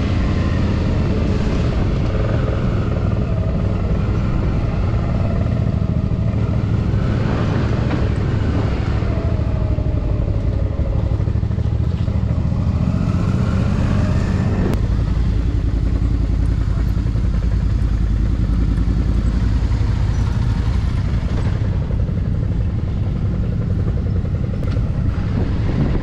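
Motorcycle engine running under way, a steady low rumble whose pitch rises and falls a few times as the rider works the throttle.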